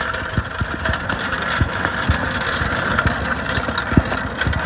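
Small tricycle's hard wheels rolling over gravel and concrete: a steady rumble with irregular knocks.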